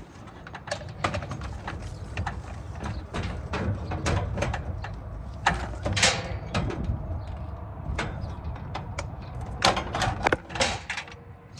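Irregular small metallic clicks and taps of hand-work fitting a washer and nut onto an electrical disconnect box, over a steady low rumble.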